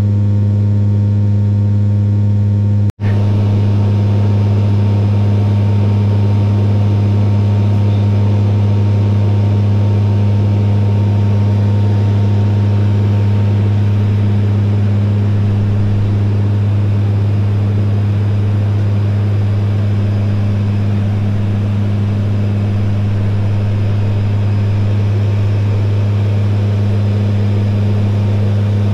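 Fokker 50 turboprop engines and propellers in flight heard from inside the cabin: a steady loud drone with a deep, even hum. The sound cuts out for an instant about three seconds in.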